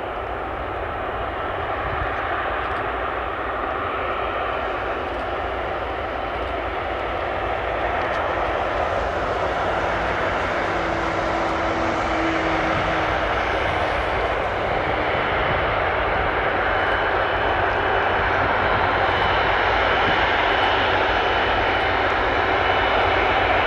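Airbus Beluga XL's twin Rolls-Royce Trent 700 turbofans at taxi power: a steady jet rumble with a high whine, slowly growing louder as the aircraft approaches.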